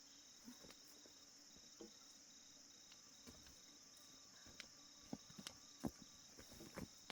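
Steady high-pitched drone of crickets or other insects, with a faint evenly pulsing chirp. Several light knocks and taps about halfway through and near the end.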